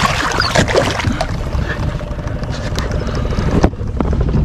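Water splashing as a released Murray cod thrashes at the surface and swims off, over a steady low rumble of wind on the microphone. A couple of sharp knocks come near the end.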